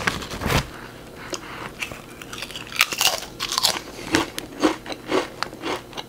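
Crisp chips being crunched between the teeth while chewing, a regular run of sharp crunches about two a second from about halfway in. At the start the foil chip bag crinkles as a hand reaches in.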